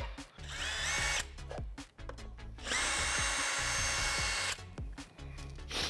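Cordless drill driver backing out the screws that hold the cooler's fan housing. It gives a short run that whines up to speed about half a second in, then a longer steady run of about two seconds in the middle.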